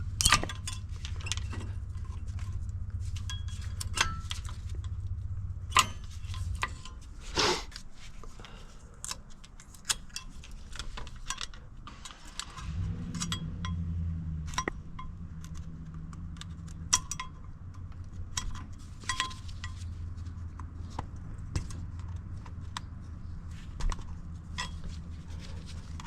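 Scattered metallic clinks and clicks of brake hardware and hand tools being handled while working on a truck's front brakes, over a low steady hum.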